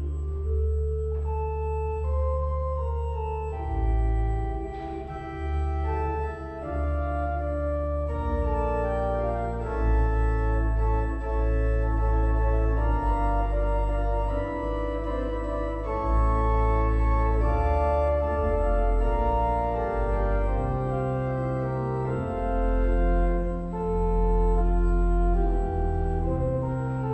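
Slow organ music: held chords over deep bass notes, changing every second or two.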